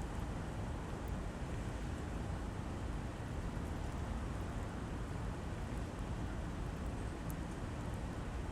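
Steady rain falling, an even hiss with a heavy low rumble underneath and a few faint ticks of drops.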